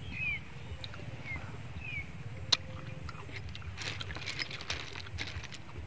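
Steamed snail shells clicking and clattering against each other as a hand picks through the pile, with one sharp click about two and a half seconds in and a quick run of clicks after it. A bird chirps a few times in the first two seconds.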